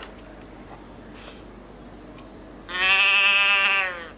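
A souvenir moo box, a cylindrical noise-maker can, turned upside down and giving one mooing call of about a second and a half that sounds like a cow or a sheep, sagging in pitch as it ends.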